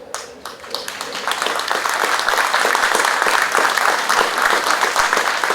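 Audience applauding: a crowd's clapping builds over the first second or two and then continues steadily.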